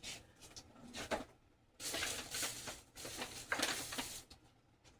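Rustling and handling of packaged food items being lifted out of a delivery box, in several irregular bursts with short quiet gaps between.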